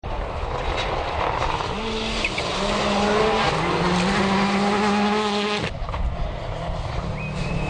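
Rally car engine at full throttle on gravel, its note climbing in pitch through several upshifts over a steady hiss of tyres and gravel. Just past two-thirds of the way in, the sound drops off abruptly.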